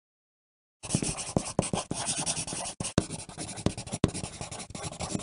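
Pencil writing on paper: a busy scratching dotted with small taps of the lead. It starts after about a second of dead silence and breaks off briefly twice.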